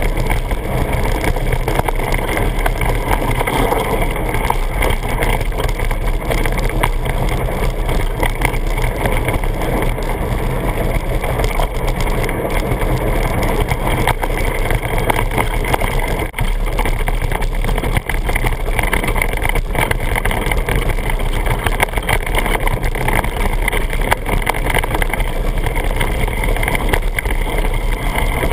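Mountain bike ridden down a dirt singletrack, heard through a camera mounted on the bike: a loud, steady rush of tyre and wind noise with many small rattles and knocks from the bike going over the rough ground.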